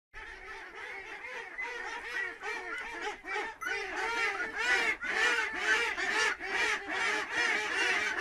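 A group of ducklings calling: many short calls in quick succession, overlapping one another, getting louder after the first couple of seconds.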